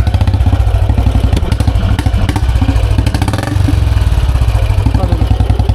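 Royal Enfield Bullet BS6 single-cylinder engine idling through the stock bend pipe and a free-flow silencer, a steady, even exhaust beat.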